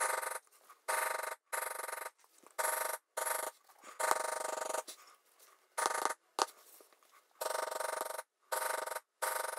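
A poly maul tapping rapidly on a steel beveling stamp as it is walked along a tooled line in vegetable-tanned leather. The tapping comes as about ten short, buzzy bursts with brief pauses between them.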